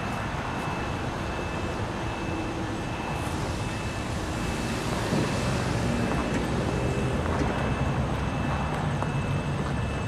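Steady outdoor traffic noise, swelling a little about halfway through.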